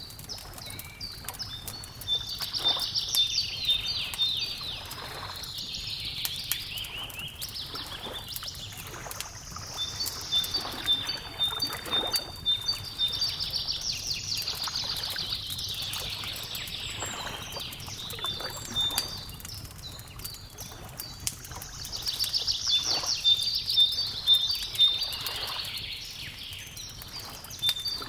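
Birds singing in phrases of fast trills and repeated high notes that come back about every ten seconds, over a wood fire crackling with scattered small pops. A soft wash of lapping lake water runs underneath.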